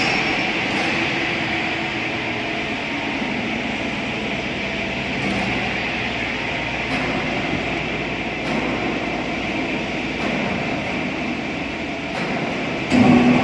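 Steady industrial roar and hum, with a sudden louder surge near the end.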